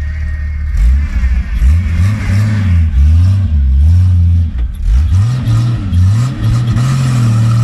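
Off-road 4x4's engine idling, then revving up and down about five times under load as it tries to climb a steep step, holding higher revs near the end.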